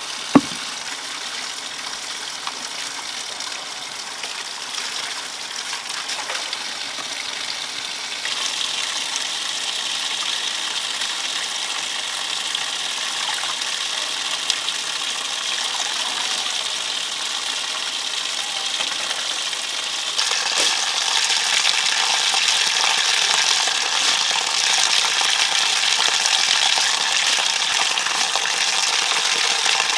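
Steady rush of running or splashing water, growing louder about 8 seconds in and again about 20 seconds in, with one sharp click near the start.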